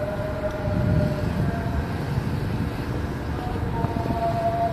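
Noon call to prayer (ezan) sung by a muezzin over a mosque loudspeaker, long held wavering notes: one in the first two seconds, another from near the end. It sits over the steady noise of a motorcycle ride with wind on the microphone.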